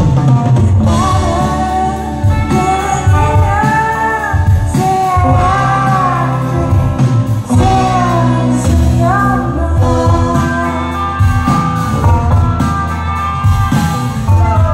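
Indie rock band playing with a sung melody over bass and drums.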